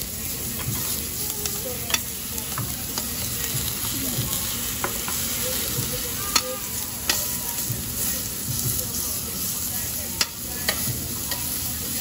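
Thin slices of beef sizzling on a perforated stainless-steel tabletop barbecue grill, with metal tongs clicking and scraping against the grill plate as the meat is moved and turned.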